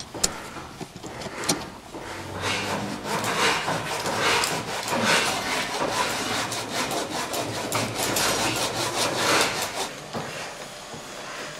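Hand saw cutting through cow horn, a run of back-and-forth rasping strokes that grows stronger about two seconds in and eases off near the end.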